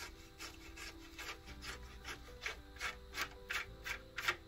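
Folding hex key turning an Allen screw out of an espresso machine's metal top cover: a run of short scraping clicks, about three a second, growing louder toward the end.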